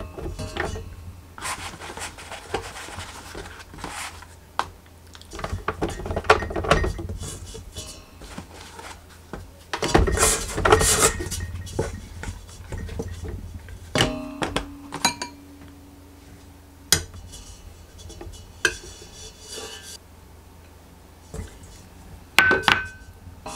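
Dough being handled in a stainless steel mixer bowl with hands and a dough scraper: scattered clinks and knocks against the metal bowl, with stretches of scraping and rustling a couple of seconds in and again about ten seconds in. There is a sharper cluster of knocks near the end as butter is added.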